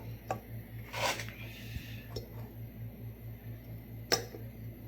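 Handling noises from tire work: a short scraping rustle about a second in and a few sharp clicks, the loudest near the end, over a low hum that pulses about four times a second.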